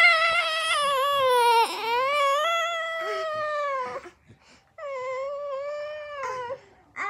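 A young child crying in long, high-pitched, drawn-out wails. There are two long cries with a short break about four seconds in, and a third begins near the end.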